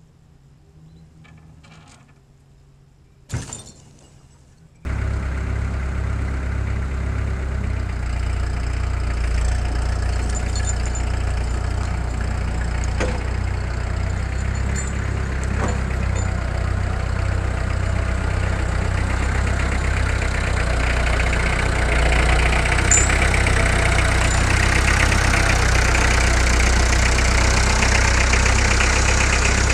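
Farm tractor engine running steadily under load, driving its wheels during a straight chain pull out of the mud, getting louder after about twenty seconds. Before the engine comes in, about three seconds in, there is one sharp crack.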